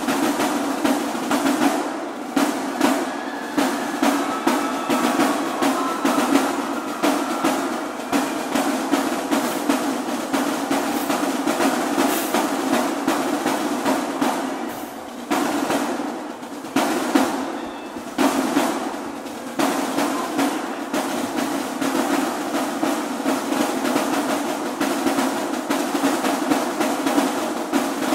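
Marching drumline of snare drums, tenor drums, bass drums and crash cymbals playing a loud, dense percussion feature full of rolls and accents, with a few brief breaks about halfway through.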